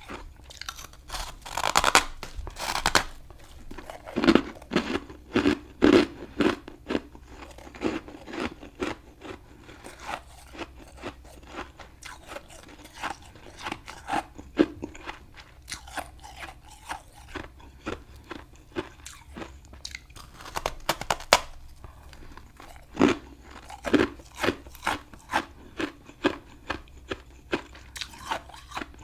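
Close-up crunching and chewing of a chunk of frost eaten by mouth: bites and chews of hard, crunchy frost, coming in bunches, with quieter stretches between them.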